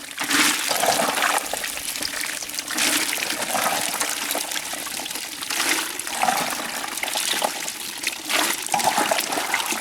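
Water pouring and splashing in repeated surges a few seconds apart.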